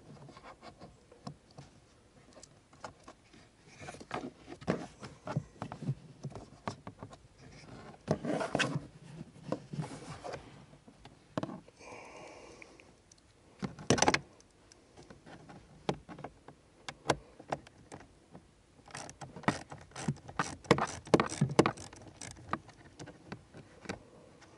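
A socket driver worked on a screw under a plastic kick panel, with irregular clicks, taps and scrapes of tool and hand on plastic. There is a sharper knock about halfway through and a run of quick clicks near the end.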